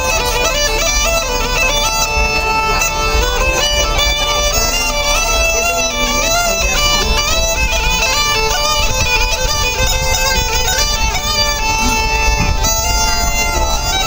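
Bulgarian bagpipe (gaida) playing a quick folk melody over a steady drone.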